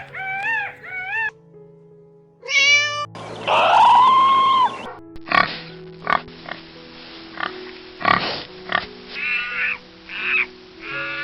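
Animal calls over background music: a few short cries, then one longer, louder call. After that comes a run of clicks and scuffling, with a few more short calls near the end.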